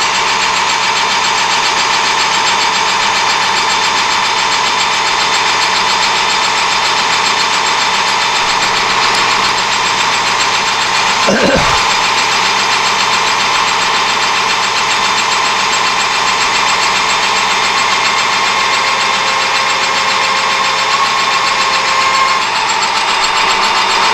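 Metal lathe boring a thin-walled steel part, spindle and cut running steadily, with a held ringing tone from boring-bar chatter as the tool feeds back out of the bore; the tone stops near the end. A brief falling sweep about halfway through.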